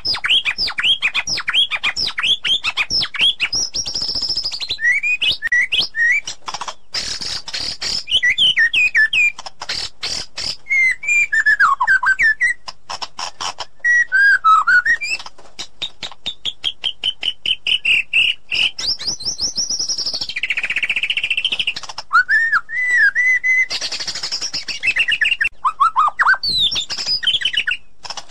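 White-rumped shama singing a long, varied song. Quick runs of sharp down-slurred notes, sliding whistles, fast repeated notes and harsh rasping phrases follow one another without a break.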